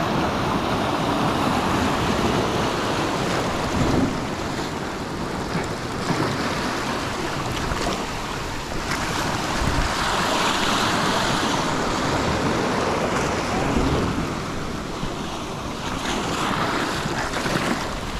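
Surf washing and surging over rocks, swelling and easing every few seconds, with wind buffeting the microphone and a few light knocks.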